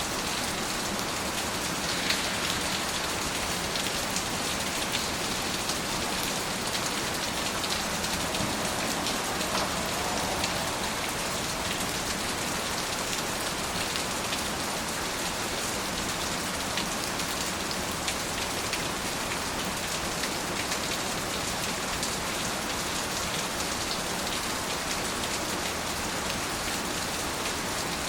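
Steady, even rain falling, with many small drop ticks close by.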